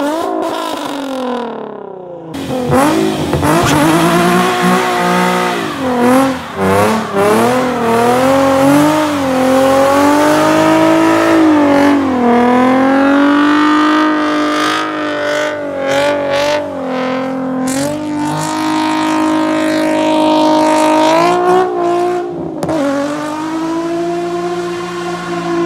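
Nissan 350Z's V6 engine revving hard during burnouts, its pitch climbing, dropping and held high for long stretches, with a brief lull about two seconds in.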